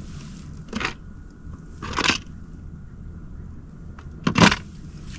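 Three short crunching handling noises, the last one loudest, as gear is handled on the deck of a small fishing boat.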